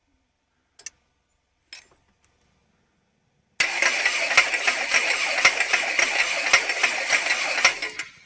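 Starter cranking a Toyota 7A-FE four-cylinder engine for about four seconds, beginning about three and a half seconds in after two faint clicks, with a regular clatter from the valvetrain. It is being turned over to find a knock in the cylinder head after oil starvation, which the owner thinks comes from a valve, perhaps broken.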